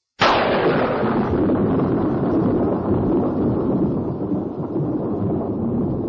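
Thunder sound effect: a sudden loud crack right at the start, then a long rumble that slowly eases off.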